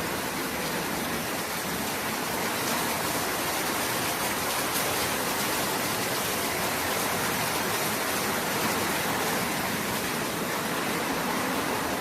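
Storm of strong wind and rain making a steady rushing noise, without a break.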